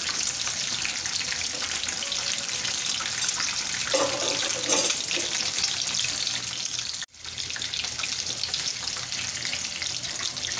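Battered Bombay duck fillets sizzling and crackling steadily in hot oil in a frying pan. The sound cuts out suddenly for a split second about seven seconds in.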